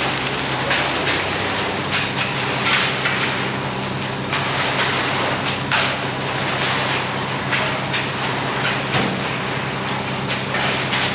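Concrete mixer truck's diesel engine running steadily, with irregular scraping and swishing of wet concrete being worked over it.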